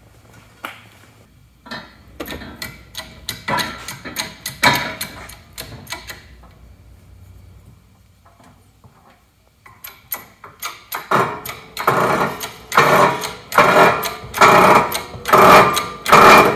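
Hydraulic shop press at work: metal clunks and clicks as the aluminium transfer case half is set up under the ram, then, after a lull, the bottle jack's pump handle is worked in a steady rhythm of about two strokes a second as the ram presses the output flange onto the front output shaft.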